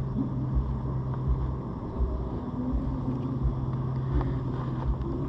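Steady low engine hum, with irregular low thumps underneath.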